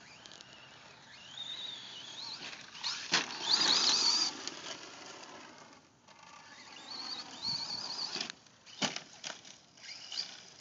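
Team Associated SC10 short-course RC truck's brushless electric motor and drivetrain whining up and down in pitch as the truck speeds up and slows down on dirt. The loudest part is a burst of tyres spinning in loose dirt about three to four seconds in, and there are a few sharp knocks near the end.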